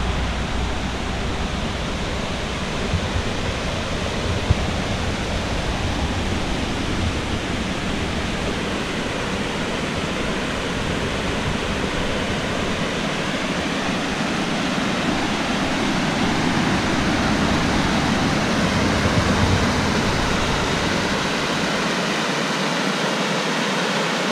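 Water cascading over a small dam, a steady rushing noise.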